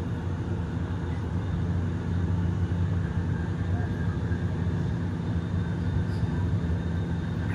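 Steady low rumble of a moving vehicle heard from inside the cabin: the running noise of travel at speed.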